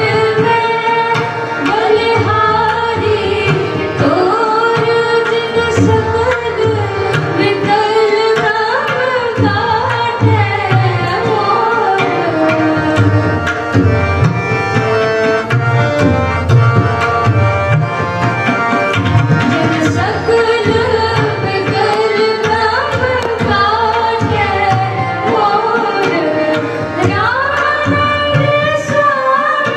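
Gurbani kirtan: two women singing a shabad together to hand-pumped harmonium, with tabla accompaniment keeping a steady beat.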